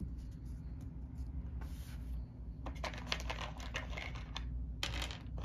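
A deck of game cards being handled: squared and set down, then slid and spread on a paper sheet, with a quick run of light clicks and rustles from about halfway in over a low steady hum.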